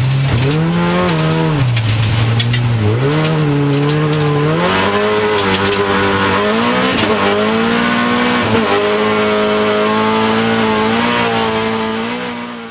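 Hyundai Accent rallycross car's engine heard from inside the stripped cabin. Its pitch falls and rises as it brakes and accelerates through a corner, then holds high under hard acceleration with two brief breaks around seven and nine seconds in. Sharp rattling clicks come in the first few seconds, with some tyre squeal, and the sound fades out at the very end.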